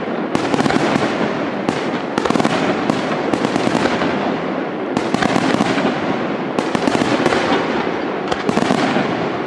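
Aerial fireworks display: shells bursting in quick succession, with a dense, continuous crackling and loud sharp bangs every second or two.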